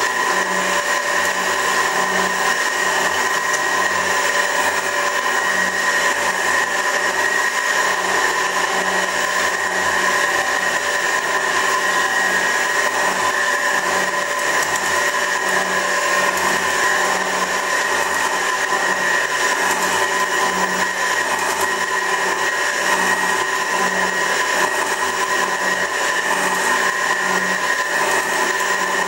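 A 24-inch Värnamo metal shaper running, its ram stroking back and forth as the cutting tool planes the face of a grinder tool rest. It makes a steady mechanical whine with a low pulse repeating about once a second.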